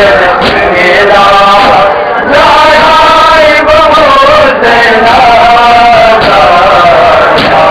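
Loud male voices chanting a Muharram mourning lament (noha) together, a continuous melodic chant.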